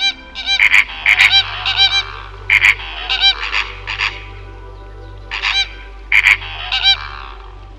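A bird honking repeatedly: many short, harsh calls in quick bunches, with a pause of about a second past the middle, over a steady low hum.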